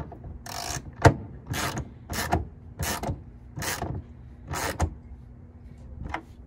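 Hand socket ratchet clicking through repeated back-and-forth strokes as it snugs a bolt into a rivnut. About eight rasping strokes come roughly every half second, with a pause before one last stroke near the end.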